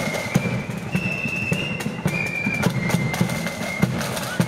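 Marching flute band playing: flutes carry a melody in unison over snare drums and a bass drum beating in march time.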